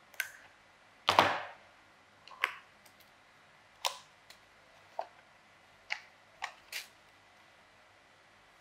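A series of irregular sharp clicks and knocks, about eight in all. The loudest is a longer clattering knock about a second in.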